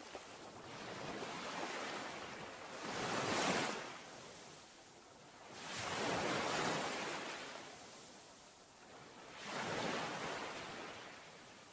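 Sea waves washing onto a shore, the surf rising and falling in slow surges about every three to four seconds.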